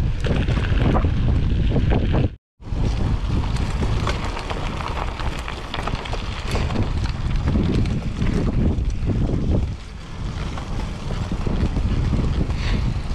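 Wind buffeting the microphone of a cyclist riding, a loud, steady low rumble with scattered small clicks. It breaks off briefly to silence about two and a half seconds in.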